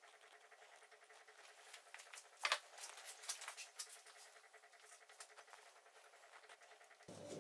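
Wort running from a clear plastic hose into a stainless steel pot: a faint, irregular spattering and trickling, with one sharper tick about two and a half seconds in.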